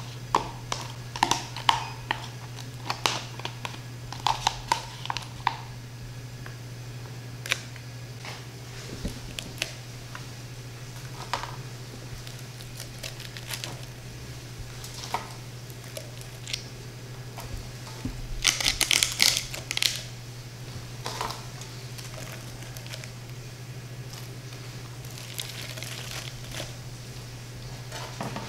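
Crisp deep-fried lobster bites handled and set down on a wooden board: scattered sharp crackles and crunches of the crispy coating, with a denser run of crunching about two-thirds of the way through. A steady low hum runs underneath.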